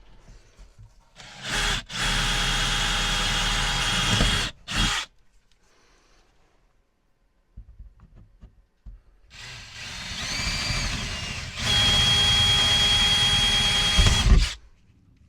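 Electric power tool running in two bursts: one of about three seconds with a short blip after it, then a longer run that starts softer with a rising whine and gets louder partway through before stopping near the end.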